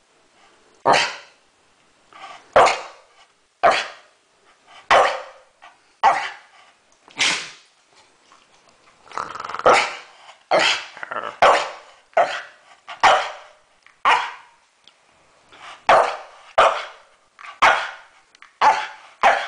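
Staffordshire bull terrier barking over and over, short sharp barks about one a second with a quicker run of them in the middle.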